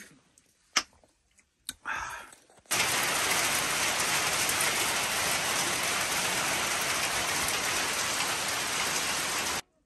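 Steady rain falling, an even hiss that starts abruptly about three seconds in and cuts off suddenly just before the end. A few faint knocks come before it.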